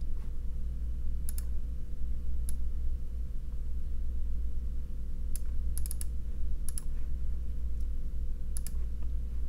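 Computer mouse clicking several times at irregular intervals, single clicks and quick double clicks, over a steady low electrical hum.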